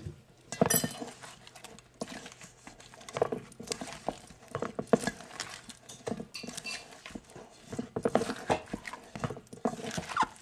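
A spoon tossing cauliflower florets through thick flour batter in a stainless steel bowl: irregular knocks and scrapes of the spoon against the metal.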